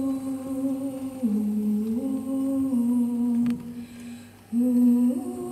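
A voice humming a slow melody in long held notes, one pitch at a time, stepping down and back up. It fades out about three and a half seconds in, then returns louder a second later and steps up to a higher note near the end.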